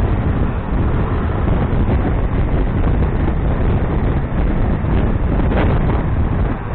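Wind buffeting the microphone over the steady running noise of a moving vehicle: a deep, continuous rumble without a clear engine note.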